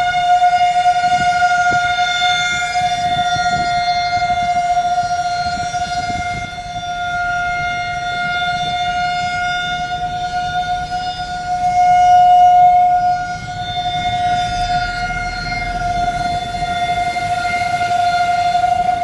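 Outdoor fire and civil-defence warning siren sounding one long steady tone without rising or falling in pitch, its loudness swelling and dipping as it goes.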